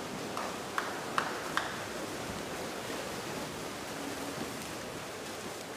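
Steady wash of background noise at a swimming pool during a race, with three brief sharp clicks, each under half a second apart, about a second in.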